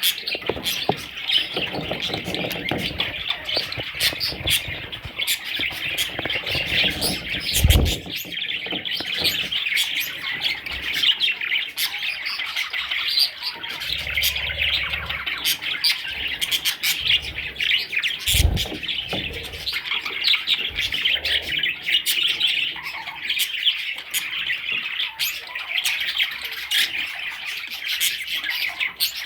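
Budgerigars chattering, chirping and squawking without a break, with a couple of brief low thumps.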